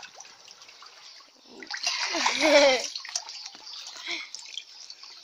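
Pool water splashing and sloshing as a child swims and kicks close to the microphone. A person's voice calls out briefly about two seconds in, louder than the water.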